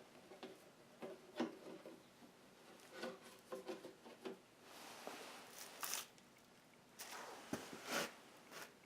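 Faint handling noises during an oil change: scattered clicks and knocks with a few short rustles, the loudest near the end.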